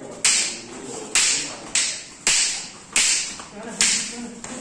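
Wooden practice swords clacking together in sparring: about six sharp strikes, roughly one every two-thirds of a second, each ringing briefly in the hall.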